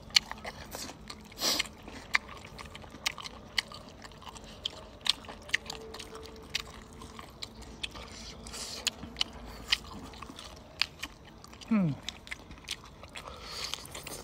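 Close-up mukbang eating sounds: biting and chewing squid tentacles, with many sharp wet mouth clicks and smacks. About twelve seconds in there is a short sound falling steeply in pitch.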